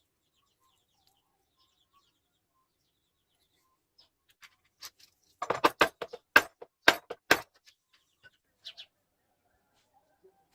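A quick run of about a dozen sharp clicks and knocks over about two seconds, midway through, with a few fainter ticks before and after.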